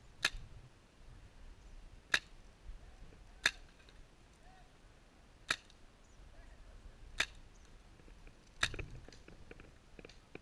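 Paintball markers firing single shots: six sharp pops at irregular intervals of one to two seconds, with fainter clicks near the end.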